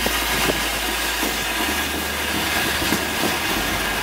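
Gold fountain firework spraying sparks with a steady hiss.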